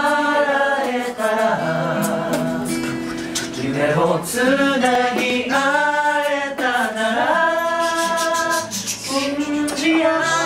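A group of men singing a cappella in multi-part harmony, with held chords under a moving melody line.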